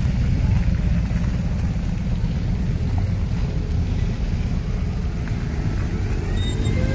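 Low, steady rumble of motorcycle and trike engines passing at walking pace in a line. There is a short rising tone near the end.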